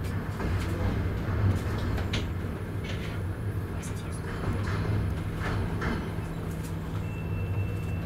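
Double-decker passenger train heard from inside a coach as it rolls out of the station: a steady low rumble and hum, with scattered clicks and knocks.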